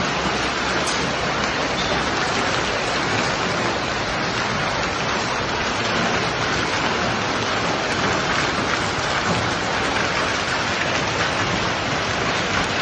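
Hailstorm downpour: hail and heavy rain falling hard and steadily, a dense, even hiss of countless small impacts.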